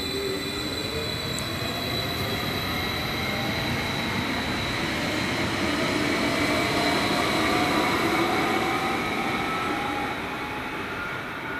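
Electric multiple unit, a Stadler FLIRT, running past along the track, its traction motors giving a whine that rises steadily in pitch as it gathers speed, over wheel and track rumble and a thin high tone. It is loudest near the middle and falls away after about ten seconds as the end of the train goes by.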